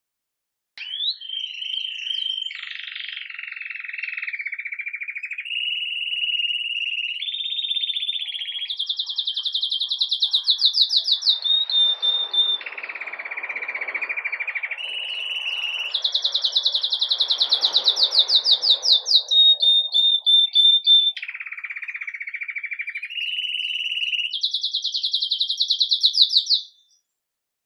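Red mosaic agate domestic canary singing the 'campainha' (bell) style of song: one long unbroken song of rapidly repeated notes, switching to a new pitch every one to three seconds. The song starts about a second in and stops abruptly near the end.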